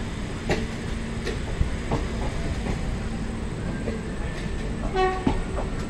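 Railway wagons rolling past at close range, with a steady rumble and wheels clacking over rail joints. About five seconds in there is a brief metallic squeal.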